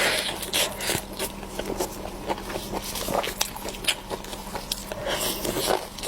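Close-miked eating: a person biting and chewing food, with many quick crunchy clicks and smacks.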